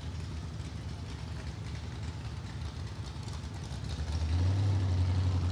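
An engine idling steadily with a low hum. It gets louder about four seconds in and holds there.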